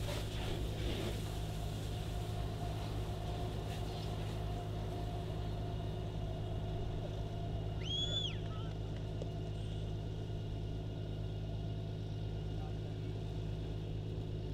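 An engine running steadily with a constant low hum, unchanging throughout. About eight seconds in, a single short high chirp rises and falls.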